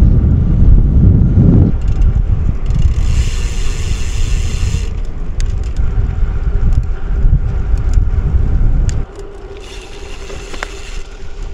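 Wind buffeting the microphone of a road bike on the move, a heavy low rumble that drops off sharply about nine seconds in as the bike slows. Twice there is a stretch of higher hiss.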